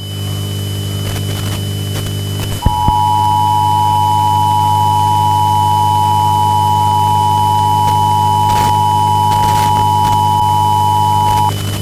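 Emergency Alert System attention signal: a steady two-tone alarm that starts about two and a half seconds in and holds for about nine seconds, then cuts off. Under it runs a steady hum with static.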